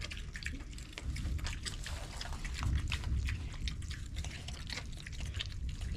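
Idaho Pasture piglets eating feed: many quick, irregular crunching and smacking sounds.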